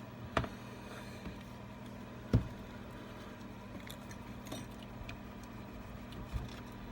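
Steady low room hum with a few light handling knocks, the sharpest about two and a half seconds in, as the repaired iPad is handled.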